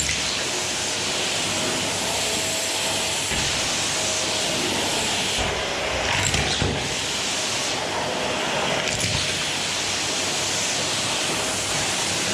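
Vacuum cleaner running steadily, its hiss brightening and dulling as the airflow changes with the nozzle's movement, with a few knocks about halfway through.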